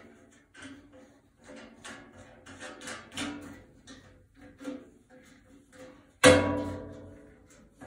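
Metal parts of a Reliant 16-inch wood band saw being handled as a part on the upper blade guide is screwed back on, with light clicks and knocks. About six seconds in comes one loud metallic clang that rings out and fades over a second or so.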